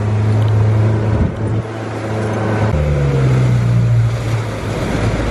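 Outboard motor running steadily as the boat moves through choppy water, with water rushing and splashing past the hull. About halfway through, the engine note shifts to a slightly different pitch.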